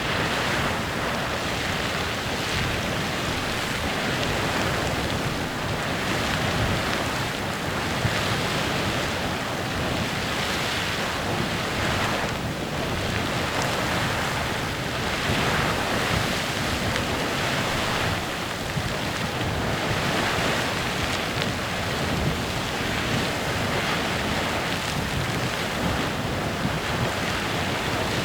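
Clepsydra Geyser erupting: a steady rushing hiss of steam and spraying water, swelling and easing slightly every few seconds.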